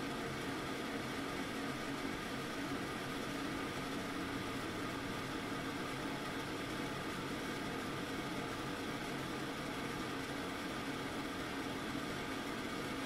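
Kitchen range hood's exhaust fan running steadily: even airflow noise with a low hum underneath.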